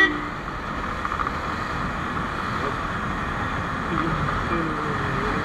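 A motorcycle riding along a road: steady wind rush on the microphone and road noise, with the engine faint underneath. A short horn beep ends right at the start.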